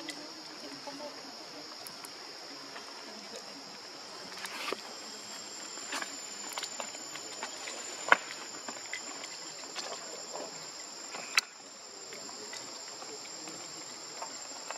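Steady high-pitched drone of forest insects, with a thinner high tone joining about a third of the way through. A few sharp clicks stand out over it, the loudest about eight and eleven seconds in.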